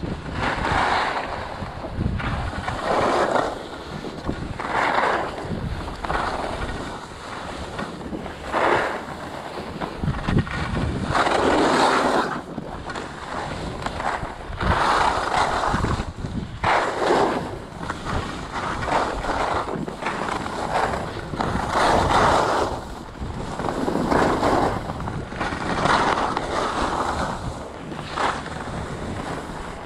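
Skis carving down a snow slope: a swell of hissing as the edges scrape the snow on each turn, recurring about every two seconds, over wind rumbling on the microphone.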